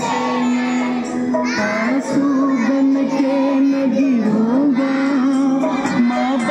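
A group of children singing a Hindi prayer together in unison, holding long notes of a slow melody.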